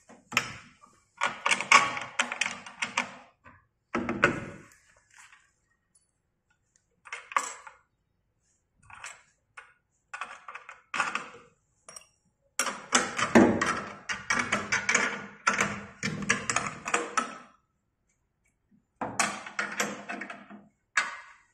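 Bursts of small metal clicks, clinks and knocks, with pauses between, as bolts, washers and nuts are handled and threaded to fasten the rear foot tube to an elliptical trainer's frame.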